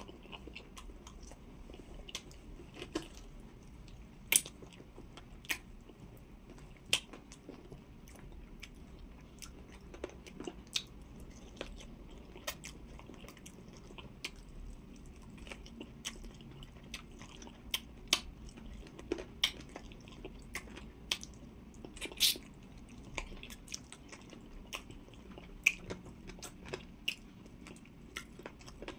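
A person chewing and biting soft roasted chicken, with sharp, irregular mouth clicks and smacks scattered throughout.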